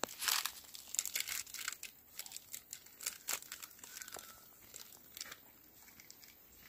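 Dry sticks and leaf litter crackling and rustling as they are handled, in quick irregular bursts that are busiest in the first half and thin out later.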